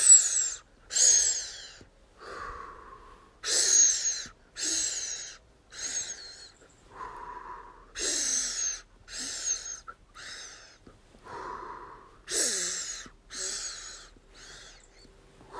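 A woman doing a three-stage breathing exercise: three quick, sharp in-breaths (into the belly, the chest, then the head), then a slower breath out through the mouth. The cycle repeats about every four to five seconds.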